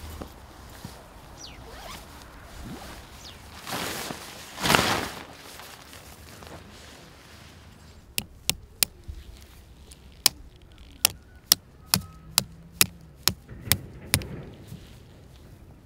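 Camping gear handled while a tent is pitched: a loud rasp about five seconds in, then a dozen or so sharp clicks at irregular spacing in the second half.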